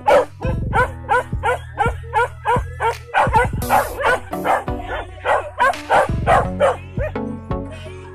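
Leashed hunting dogs barking and yelping in a quick run, about three calls a second, thinning out near the end, over background music.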